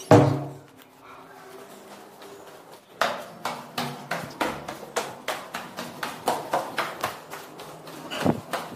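Footsteps climbing concrete stairs, about two to three steps a second, starting about three seconds in. At the very start there is one loud knock that rings briefly.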